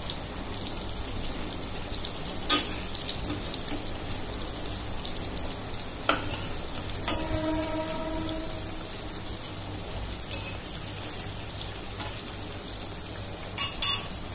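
Slices of elephant foot yam sizzling steadily in hot oil in a steel kadai. A few sharp clicks and scrapes come from a metal spatula against the pan as the slices are turned.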